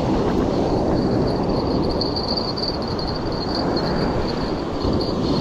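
Steady rush of surf and wind buffeting the microphone, with a thin, continuous high chirring of insects over it.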